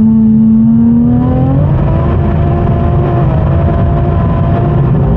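Big-turbo BMW M140i's turbocharged straight-six heard from inside the cabin under way, its note rising slightly for about a second and a half, then settling into a steady drone over road rumble.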